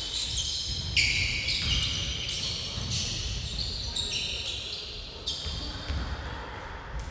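Basketball players' sneakers squeaking repeatedly on the wooden gym floor as they run and cut, with low thuds of the ball and feet underneath.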